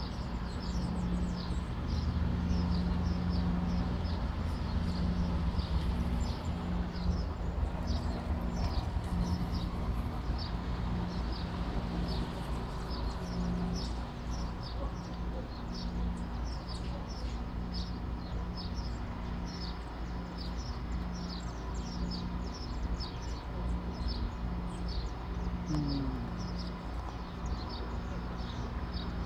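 Steady low running hum of a Vitória a Minas passenger train at a station stop. Over it, a bird calls again and again in short high chirps that fall in pitch, about two a second.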